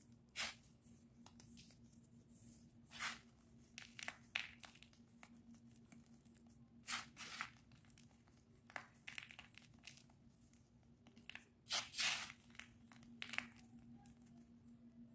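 Crushed slate pencil fragments and powder crunching and crumbling as fingers rake and squeeze handfuls of them, in short separate crackles every second or few, the loudest a double crunch about twelve seconds in. A faint steady hum sits underneath.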